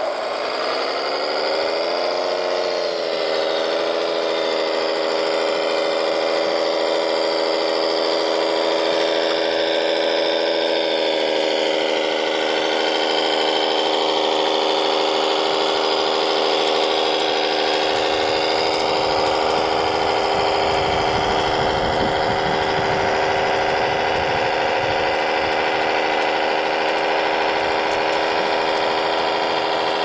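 Radio-controlled model dump truck running, a steady mechanical motor whine that dips in pitch about two seconds in and then holds steady. A low rumble joins in for several seconds past the middle.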